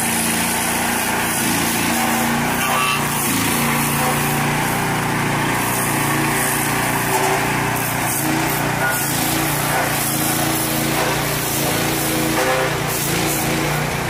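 13hp petrol stump grinder running hard as its cutter wheel grinds into a tree stump. The engine note shifts in pitch now and then as the wheel bites into the wood.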